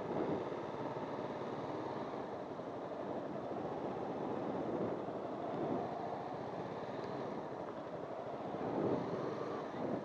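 Wind and ride noise on a helmet microphone while riding a Honda CBR250 motorcycle slowly through traffic, a steady muffled rush with the engine running underneath.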